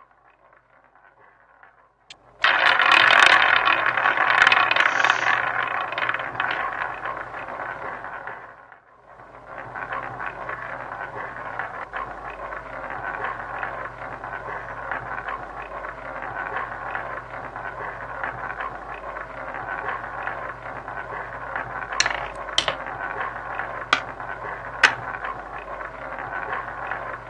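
Online roulette game's wheel-spin sound effect: the ball rolling around the wheel starts suddenly about two seconds in as a loud rattling run that fades, then goes on as a steadier rattle. A few sharp clicks near the end as the ball settles into its pocket.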